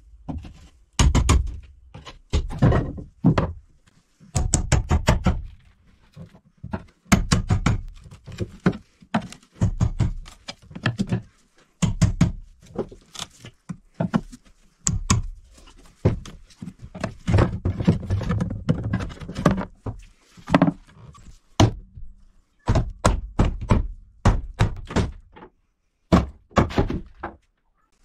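Repeated knocks and thunks of hand tools striking wooden boat trim, in quick runs of blows with short pauses between them, as the trim is knocked loose.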